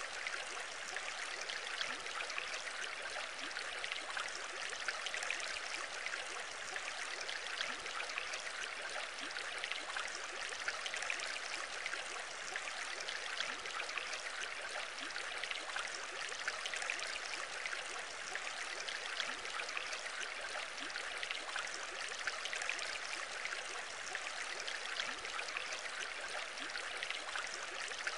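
Aquarium water bubbling steadily, a dense fine crackle of small air bubbles and splashes at the surface.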